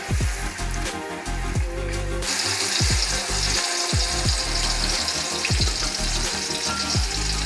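Chicken pieces in masala sizzling in a clay pot as a wooden spoon stirs them. Background music with a deep bass beat that drops in pitch on each hit plays over it.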